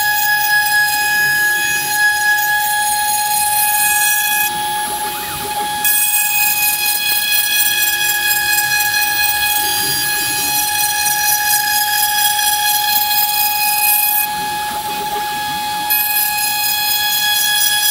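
Milling machine spindle with a small cutter cutting copper-clad FR4 circuit board on a cleanup pass, a steady high-pitched whine. Twice, at about five seconds and near fifteen seconds, the higher tones drop away for a second or two before the cut resumes.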